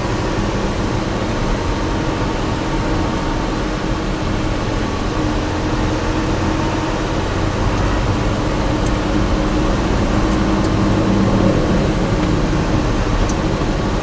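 Steady mechanical hum with a few held tones under a constant noise, and a few faint clicks near the end.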